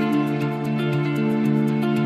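Background music with long held notes and slowly changing chords.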